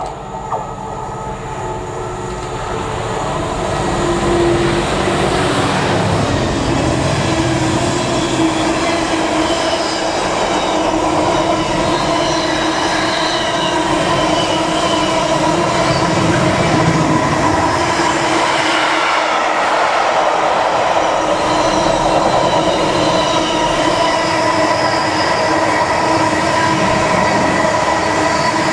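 Container freight train running through at speed: the noise builds over the first four seconds as the train nears, then a steady rumble and rattle of container wagons rolling past, with a steady whine over it.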